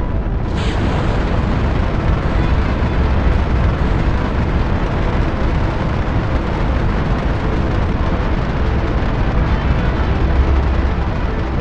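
Rocket launch sound of engines at liftoff: a loud, steady noise, strongest in the deep bass, that opens with a short burst of hiss just after the start.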